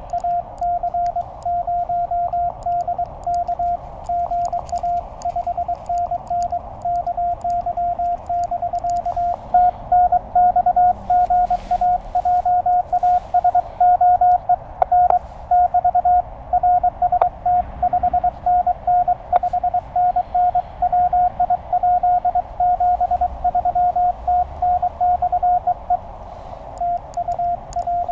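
Morse code from a Penntek TR-35 QRP transceiver: one steady tone keyed on and off in quick dits and dahs. Faint clicks sound with the tone in the first third, and from about ten seconds in the tone is slightly louder with band hiss around it.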